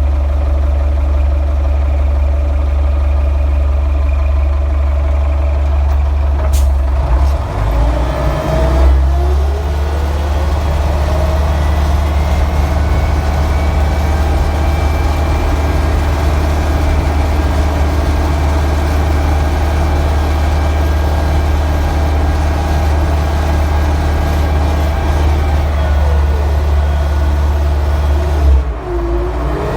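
Caterpillar 920 wheel loader's diesel engine running with a loud, steady low drone, its pitch gliding up and down a few times as the revs change, once about a quarter of the way in and again near the end.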